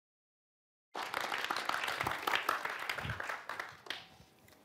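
Audio is completely silent for about the first second. Then an audience applauding cuts in abruptly and tapers off near the end.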